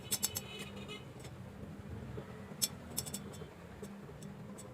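Stick-welding arc on a 2.6 mm 6013 rod crackling in irregular sharp clicks over a steady low hum.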